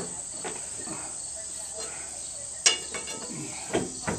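Crickets chirping steadily, with a few sharp knocks in the second half: the first and loudest is a metallic clank with a brief ring, followed by two smaller knocks close together near the end.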